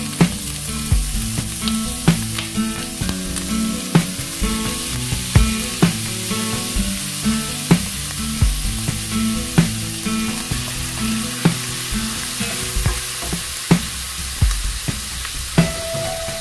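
Pork belly strips and garlic sizzling in hot fat in a frying pan as they are stirred with a wooden spoon, over background music with a steady beat.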